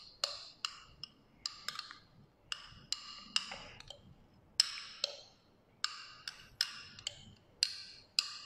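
A metal spoon tapping and scraping against the rim and inside of a container while red bean dalgona whipped-cream foam is spooned out onto a drink. It makes sharp, short-ringing clicks, roughly two a second, with a brief pause about four seconds in.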